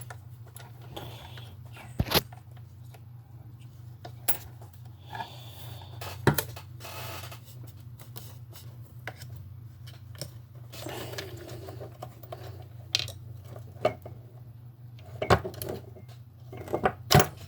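Hard plastic parts of a remote-control toy car clicking, knocking and scraping as they are handled and pressed together, with a few sharp knocks, the loudest about 2, 6, 15 and 17 seconds in.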